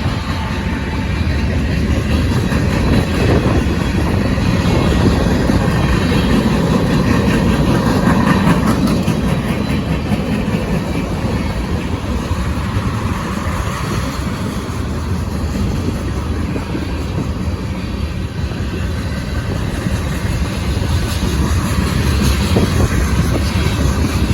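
A train rolling past, a steady rumble and rattle of wheels on rails.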